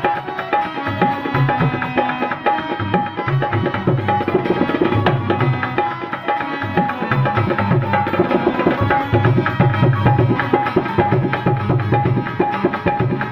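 Instrumental break in a Sindhi song: a steady hand-drum beat under a repeating melodic figure, with no singing.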